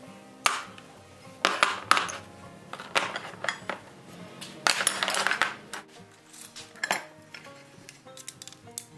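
Steel buggy seat irons set down one after another on a wooden workbench, clinking and clattering in a series of sharp knocks, over background music.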